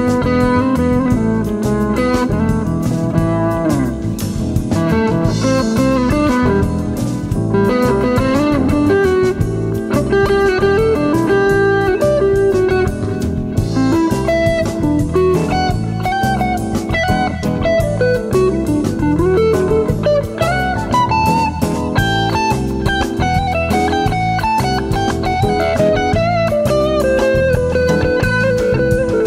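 Background music: an instrumental band track with a lead guitar over bass and drums, its melody notes bending and sliding in pitch.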